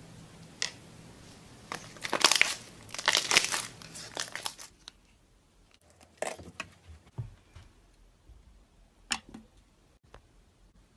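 Slime being pressed and stretched by hand, crackling and popping. A single pop comes first, then a dense run of crackles from about two seconds in to nearly five, then a few more separate pops.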